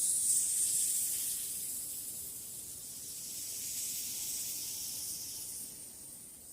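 A steady high-pitched hiss that slowly fades out.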